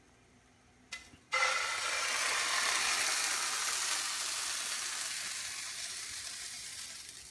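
Crepe batter poured into a hot frying pan, sizzling: a sudden hiss about a second in that slowly fades as the pan is swirled to spread the batter thin. A short knock just before the sizzle starts.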